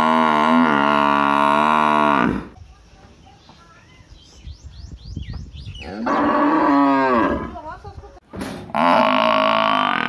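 Water buffalo calling, a long steady low call that ends about two seconds in. After a short lull a cow moos once, its pitch bending. Near the end the buffalo calls again, loud and long.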